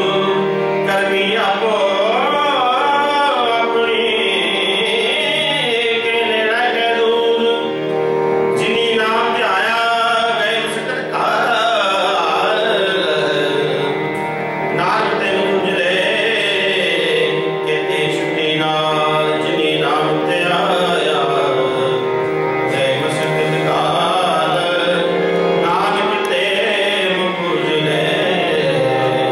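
Sikh kirtan: a hymn sung to harmonium, with tabla accompaniment. The harmonium's held notes run steadily beneath the gliding vocal line.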